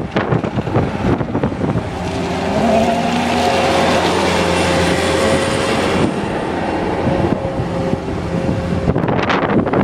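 A motor engine running steadily for about seven seconds, from about two seconds in, with rough gusty noise before and after it.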